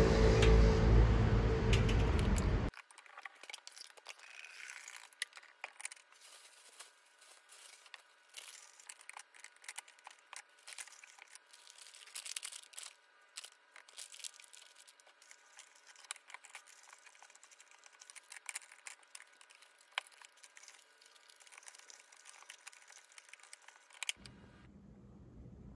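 Street traffic noise for the first couple of seconds, cut off suddenly. Then faint crinkling of a plastic coffee bag and light clicks and taps as a drip coffee maker is handled and filled. A faint low hum starts near the end.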